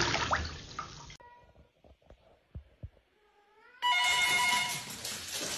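Bath water splashing and sloshing as a cat thrashes in a filled bathtub, cutting off suddenly about a second in. After a quiet stretch with a few faint clicks, a steady set of held high tones comes in past the middle.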